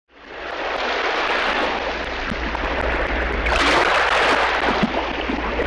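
Ocean surf sound effect: a steady wash of waves that fades in quickly and swells about three and a half seconds in, over a low steady drone.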